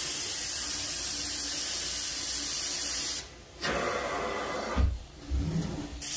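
Carpet-cleaning extraction wand working an area rug, with a steady hiss of spray and suction. The hiss cuts out briefly about three seconds in and again around five seconds, with a couple of low thumps near the end.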